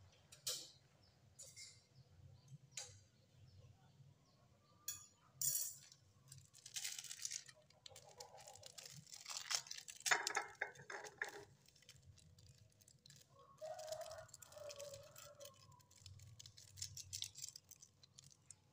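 Foil instant-noodle seasoning sachets being handled and torn open over a ceramic bowl: crinkling and tearing, with scattered light clicks and clinks against the bowl.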